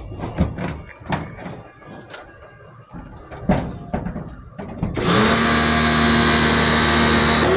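Scattered clicks and knocks of equipment being handled, then, about five seconds in, a motor-driven machine starts abruptly and runs steadily with a loud hiss and a steady hum.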